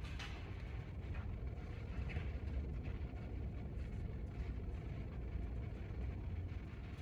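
Auditorium room tone: a low, steady rumble with a few faint small clicks and rustles from the seated band, no music yet.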